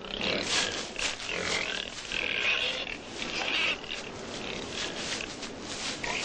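A wild boar–domestic pig hybrid (inobuta) squealing and grunting in a string of loud, harsh cries, strongest in the first few seconds.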